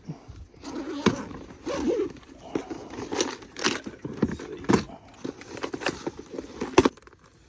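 Rummaging through plastic tackle boxes: irregular clicks, knocks and rattles of hard plastic and fishing lures, with a sharper knock near the end.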